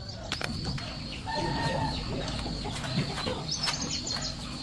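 Scattered light clicks and knocks, with birds chirping in the background and a short run of chirps near the end.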